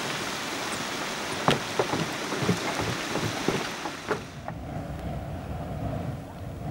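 Boiling hot-spring water hissing with irregular bubbling pops and splashes. About four seconds in, it gives way to the steady low rushing of a steam vent.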